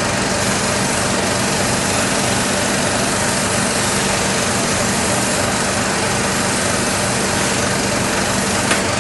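Steady motor hum with a broad hiss, running unchanged throughout.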